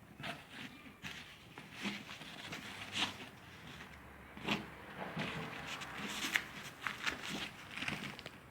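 Irregular handling noises: scattered clicks, taps and rustling, as of objects or packaging being moved about by hand.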